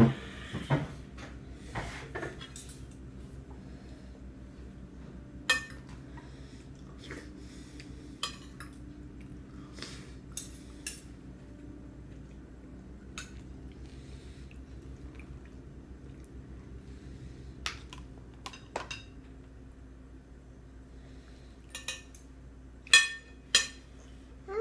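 Toddler's plastic spoon clinking and scraping against a metal-lined suction bowl while she eats, sharp clicks every second or two with a few close together near the end, over a steady low hum.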